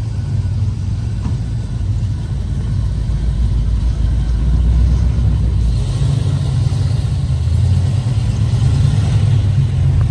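A car engine running with a deep, steady rumble, growing louder about three seconds in and staying there.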